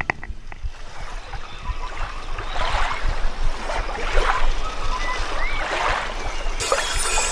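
Mountain bike rolling fast down a dirt singletrack, with tyre noise and wind rushing over the camera microphone and scattered clatter from the bike over bumps. Music comes back in near the end.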